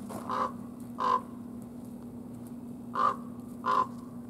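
Chickens giving four short, harsh squawks, two close together near the start and two more about three seconds in, over a steady low hum.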